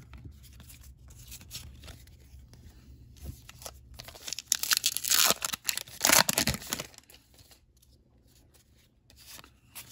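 A trading-card pack wrapper being torn open and crinkled by hand, loudest about four to seven seconds in, with quieter rustling of cards being handled around it.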